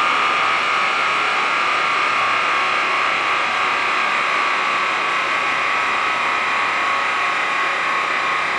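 Large dyno cooling fan blowing at a constant speed: a steady rush of air with a high whine in it, with no engine note audible.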